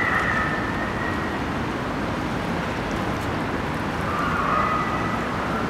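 Steady urban background noise of distant traffic, with a faint far-off siren sounding at two pitches near the start and again in the last couple of seconds.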